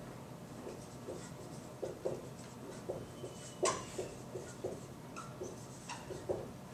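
Dry-erase marker writing on a whiteboard: a run of short, irregular strokes, with one sharper tick about three and a half seconds in.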